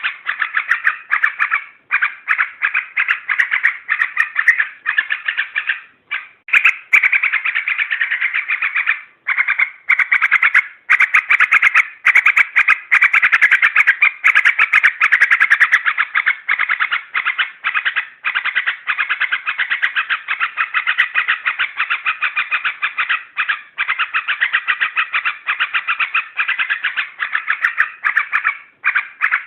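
Yellow-vented bulbul (trucuk) song: a fast, continuous chatter of short notes with a few brief breaks. It is played as a lure call to provoke bulbuls into answering.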